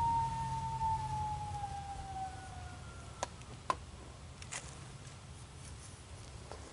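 Electronic predator call playing a coyote howl: one long note sliding slowly downward, fading out about three seconds in. Two sharp clicks follow shortly after.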